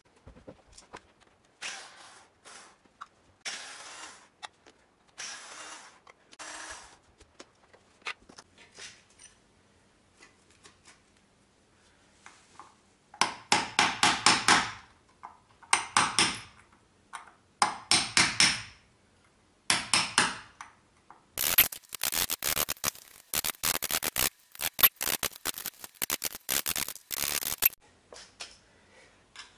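Hand hammer striking a chisel to chip plaster out of a wall around old switch boxes, in bursts of rapid blows that grow denser and louder over the last third. Before the hammering, a few quieter scraping sounds.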